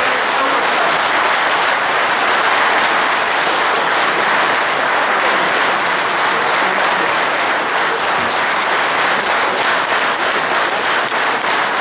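A hall audience applauding steadily, with single claps standing out more near the end.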